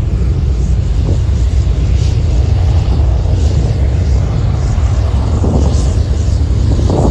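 Boeing 737-400's CFM56 turbofan engines running at takeoff power as the airliner rolls down the runway: a steady, heavy low rumble.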